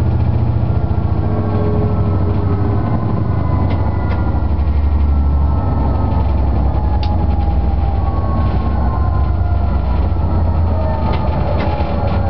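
Electric train running along the track, with a steady low hum, a whine that slowly falls in pitch, and a few sharp clicks from the wheels on the rails.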